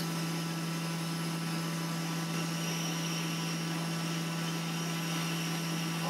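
Hot air rework station blowing steadily onto a circuit board: an even rush of air with a low steady hum underneath, unchanging throughout.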